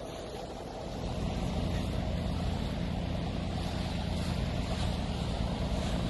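Steady low drone of a boat's diesel engine running, getting louder about a second in and then holding even.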